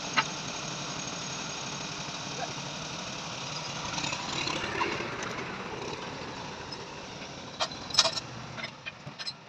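Massey Ferguson tractor engine running steadily, with a sharp knock at the start and a few sharp metallic clicks near the end.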